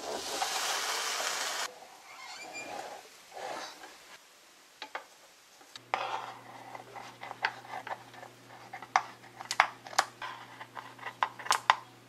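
Kitchen work with utensils and dishes: a loud hiss for the first second and a half and some soft scraping, then a low steady appliance hum starts suddenly about six seconds in, under quick clinks and taps of a utensil against dishes.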